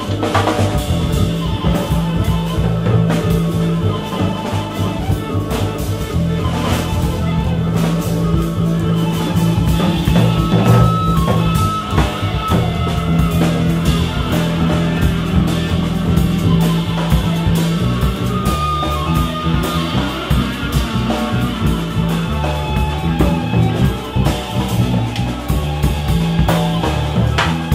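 Live trio music: electric guitar, upright double bass and drum kit playing together, with sustained low bass notes under guitar lines and steady cymbal and drum hits.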